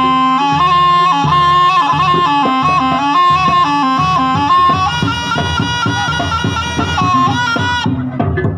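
Jaranan music: a slompret, the Javanese double-reed shawm, plays a loud, nasal, stepping melody over regular kendang drum strokes.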